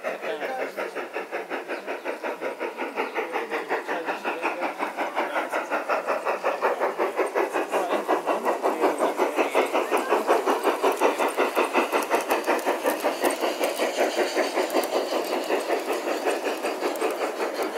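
Simulated steam-locomotive chuffing, quick and even over a hiss, from a battery-powered, radio-controlled garden-scale model steam locomotive. It grows louder over the first half as the train comes closer, then holds steady.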